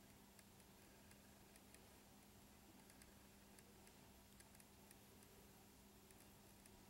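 Near silence: faint room tone with hiss and a steady low hum, under faint, irregular ticks.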